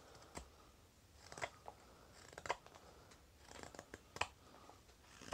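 Straight carving knife slicing thin shavings off a wooden spoon blank: a handful of short, faint, crisp cutting strokes spaced about a second apart, as the bevel is carved around the end of the spoon.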